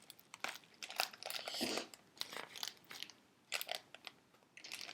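Packaging crinkling and rustling in short, scattered crinkles and clicks as a wrapped stone is unwrapped.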